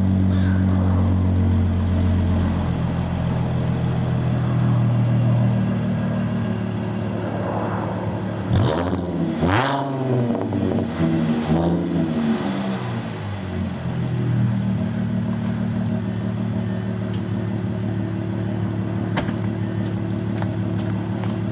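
Audi S4's supercharged 3.0-litre V6 through an AWE Track exhaust with non-resonated downpipes, idling after a cold start, the idle stepping down about two seconds in. About nine seconds in it is revved once sharply and blipped a couple more times, then settles back to a steady idle.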